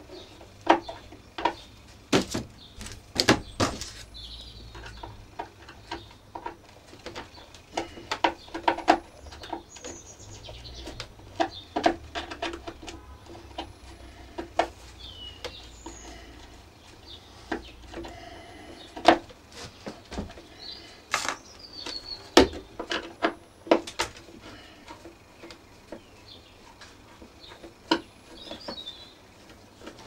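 Scattered clicks and knocks of a screwdriver undoing screws and a plastic cover plate being handled on a vacuum cleaner's housing. Birds chirp faintly every few seconds behind it.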